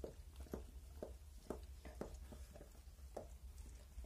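Faint, irregular soft wet clicks and smacks, a couple each second, from a nursing mother dog and her newborn puppies, over a steady low hum.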